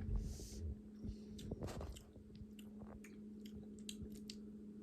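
A person chewing a soft-centred chocolate with a marshmallow filling, with faint, scattered mouth clicks and smacks.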